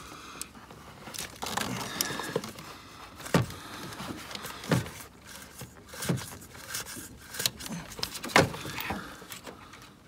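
Scattered clicks, knocks and rustling of gloved hands working a throttle body free, unhooking its cable, air hose and plastic electrical connector. The engine is off.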